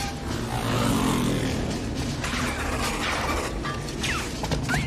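Action-film soundtrack: score music mixed with clanking machinery and crashing sound effects, with a few sharp hits near the end.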